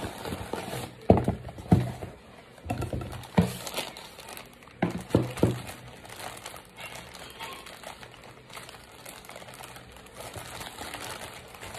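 Packaging being handled: a cardboard shipping box and a plastic mailer bag, with several sharp knocks and rustles in the first half, then softer crinkling of the plastic as fingers pick at the bag's seal.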